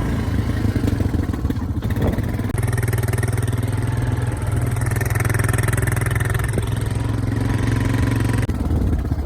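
Motor vehicle engine running at a steady pitch, its note changing about two and a half seconds in and again near the end, with rushing air noise.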